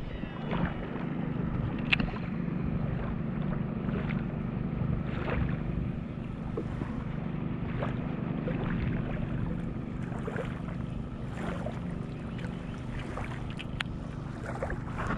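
Wind buffeting the microphone and choppy lake water, over a steady low hum, with scattered light clicks and splashes.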